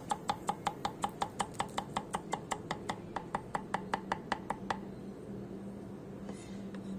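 A kitchen knife chopping turmeric root finely on a wooden chopping board, with the tip of the blade. Quick, even knocks, about four to five a second, stop a little over halfway through.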